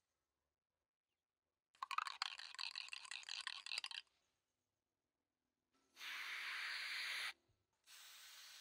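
Aerosol spray paint can shaken for about two seconds, its mixing ball rattling, then two bursts of spray hiss, the first longer and louder than the second.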